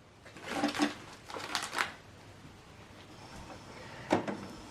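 Plastic clatter as the HP DeskJet printer's cartridge access door is closed. Then a faint whir from the printer mechanism and one sharp click near the end.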